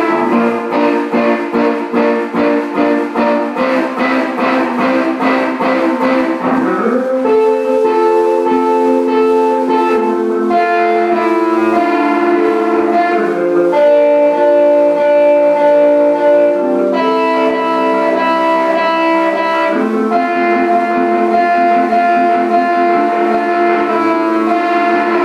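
Electric guitar playing quick picked notes for the first several seconds, sliding in pitch about seven seconds in, then long ringing notes and chords that change every second or two.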